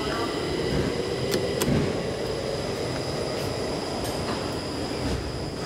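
Schindler hydraulic elevator running: a steady low rumble with a high whine over it, and two sharp clicks about a second and a half in.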